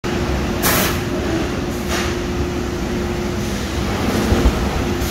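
CLM three-station automatic sheet feeder and its ironing line running, a steady machine rumble with a constant hum. Two short hisses come about a second apart near the start, and a low thump near the end.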